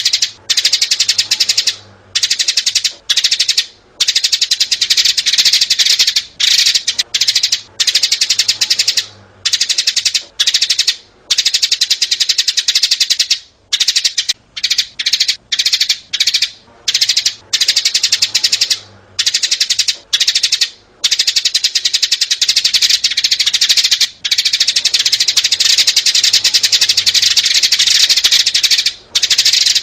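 Sparrows, adults and young together, chirping in a dense, rapid, near-continuous chatter broken by brief pauses every second or two: a sparrow-call recording of the kind played as a lure for trapping birds.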